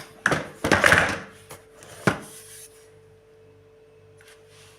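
Handling noises from a Miele White Pearl XXL vacuum cleaner's plastic body while it is switched off: a scraping rub about a second in and a sharp knock about two seconds in. After that it is quiet apart from a faint steady hum.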